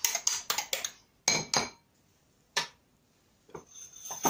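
A metal fork beating eggs in a glass bowl: quick clinks of the fork against the glass, about four a second, stop about a second in. A few separate single clinks of the fork on the bowl follow.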